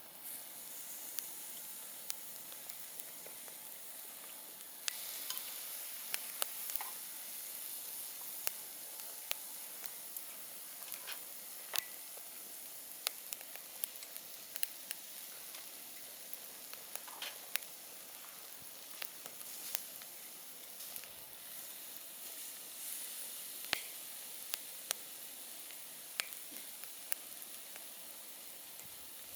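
Wood campfire burning: a steady hiss with frequent, irregular sharp crackles and pops of burning wood.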